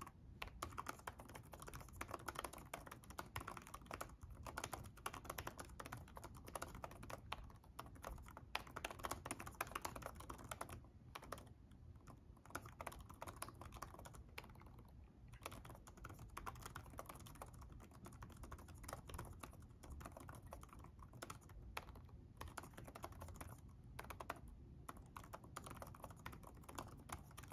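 Quiet, continuous touch-typing on the Dell XPS 13 9310 laptop keyboard: a dense stream of soft key clicks, with a few short pauses around the middle.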